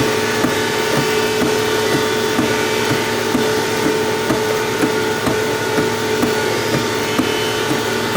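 A woodworking machine's electric motor running steadily at a constant pitch, with a faint regular tick about twice a second.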